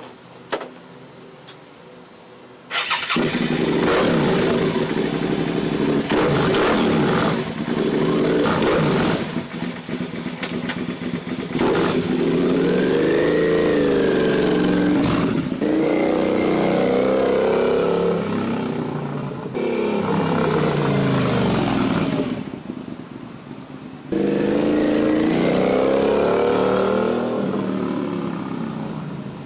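Suzuki SV650S 645 cc V-twin with a Delkevic 200 mm carbon-fibre slip-on exhaust starting up about three seconds in and running loud. It is then revved repeatedly, the pitch rising and falling with each blip, and settles back toward idle near the end.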